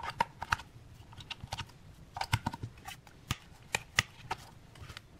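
AAA batteries pressed into a multimeter's plastic battery compartment, then its plastic back cover set into place: a series of irregular small clicks and taps.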